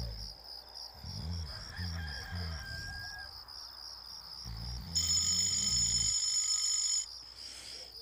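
A rooster crowing once, a single call lasting about two seconds that starts about five seconds in, over a steady chirping of crickets at about four or five chirps a second.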